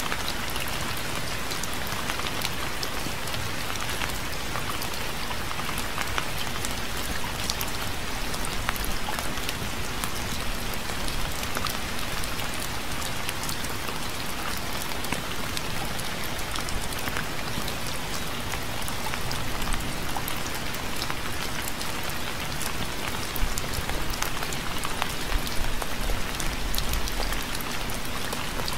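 Steady rain falling, with many individual drops pattering on a surface over a continuous hiss.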